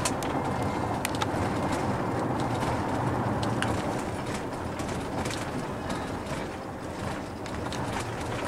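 Taxi cabin noise while driving through city traffic: a steady engine and road hum with a few sharp clicks.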